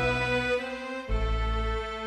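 Background music of slow, sustained chords over a deep bass, moving to a new chord about a second in.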